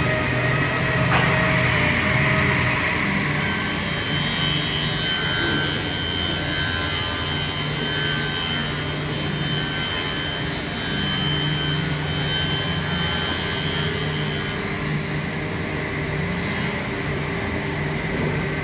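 A power tool cutting into a wooden panel: a steady motor hum, with a higher whine from about three seconds in until nearly fifteen seconds in.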